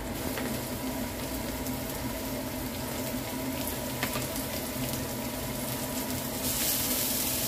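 Chopped garlic and sliced red onion sizzling in hot oil in a nonstick wok, with a few light clicks of a wooden spatula. The sizzle grows louder near the end.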